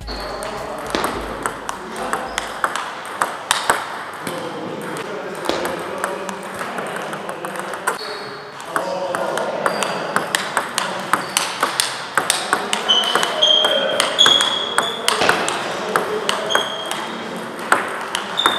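Table tennis balls clicking off paddles and tables in quick, irregular rallies, from this table and neighbouring ones, with brief high squeaks in the later part.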